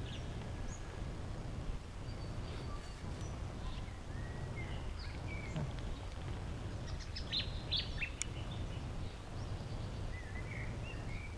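Steady low outdoor background rumble with small birds chirping here and there, short high chirps and quick little glides, busiest in the middle and again near the end.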